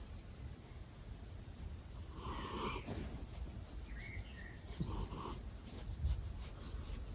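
Domestic cat snoring, one snore on each breath; two snores about two and a half seconds apart.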